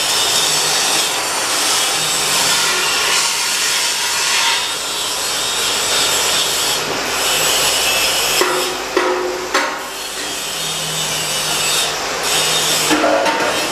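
Steady, loud rasping of metal grinding, with short squeals about two-thirds of the way through and again near the end.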